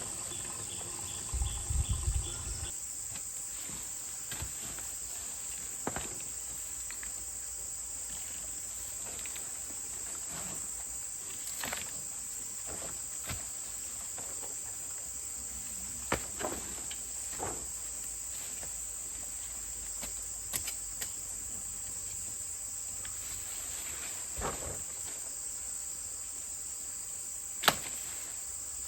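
Insects droning steadily at a high pitch, with a low thud in the first few seconds and scattered short knocks and clicks.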